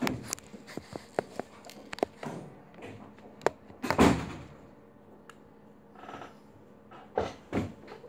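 Handling noise from a wristwatch and its leather strap worked close to the microphone: a run of small clicks and knocks, a heavier thump about four seconds in, and two more thumps near the end.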